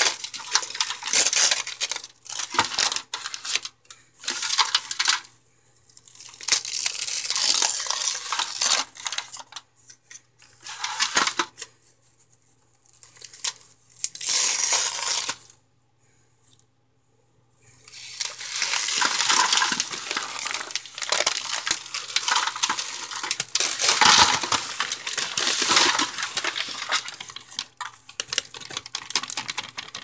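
A bag crinkles as it is peeled off a hard block of microwaved cornstarch, and the block cracks into brittle chunks that rattle against an aluminium foil pan. The sound comes in bursts with a few short pauses.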